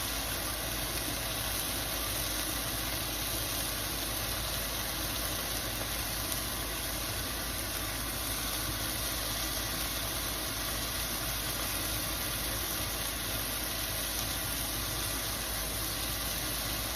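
Steady, even rushing noise at the stove while a pan of mushroom karahi cooks on a lit gas flame.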